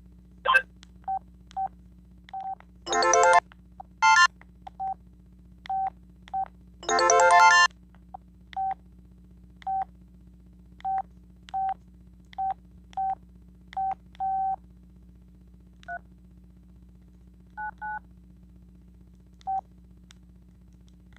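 Sanyo VI-2300 mobile phone keypad beeps as its buttons are pressed: about twenty short tone beeps at an uneven pace, mostly the same pitch. A few louder, fuller phone sounds come about three, four and seven seconds in.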